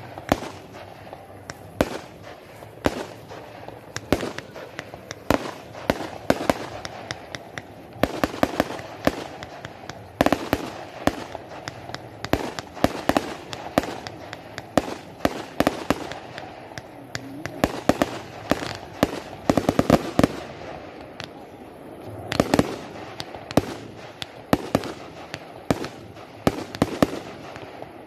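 Fireworks display: a dense, irregular string of sharp bangs and crackles from bursting shells, several a second, some much louder than others, over a murmur of voices.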